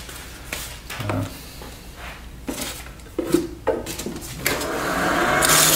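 A few knocks and handling clatter, then near the end the wood lathe spins up and sandpaper begins rubbing on the spinning bocote pendant with a steady hiss.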